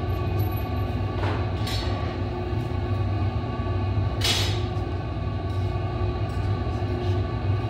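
Gas-fired glassblowing furnace and glory hole running with a loud, steady low rumble, a few short bursts of hiss over it.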